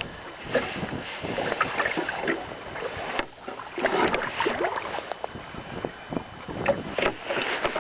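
Water splashing irregularly beside a boat as a hooked northern pike thrashes while being grabbed by hand, with scattered knocks.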